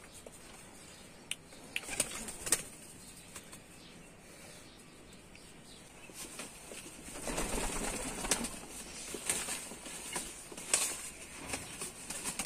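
Domestic pigeons flapping their wings and jostling around a feeding tray as grain is scattered. A few sharp taps come in the first few seconds, and the wing-flapping grows thicker and louder from about halfway through.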